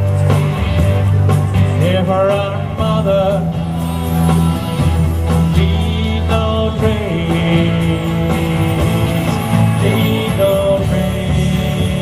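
Song with backing music: a wavering melody line over a steady bass.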